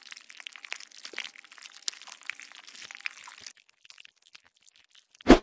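Crisp crackling and crunching scrape sound effect, as of a razor blade scraping a crusted surface, for about three and a half seconds. A few scattered crackles follow, then one loud thump just before the end.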